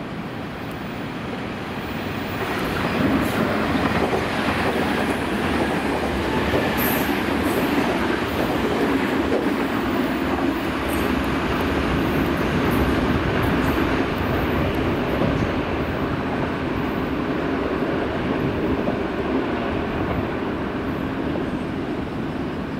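Nankai 1000 series electric train running along the track, with a steady rumble and rattle of wheels on rail that builds about two seconds in and eases off near the end. Scattered sharp metallic clicks sound over it.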